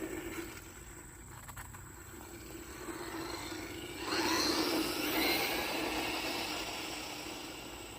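Brushless 1/10-scale RC buggy driving, its electric motor whining with tyre noise. About four seconds in it speeds up with a rising whine and grows louder, then fades away gradually.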